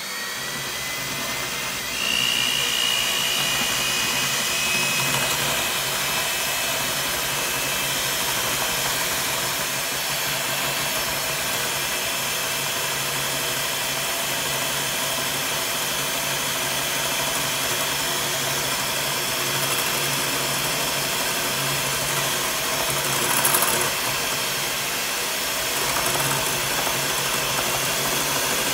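Electric hand mixer running steadily, its beaters whipping instant coffee, sugar and hot water into a foam in a glass bowl. The motor runs a little louder from about two seconds in.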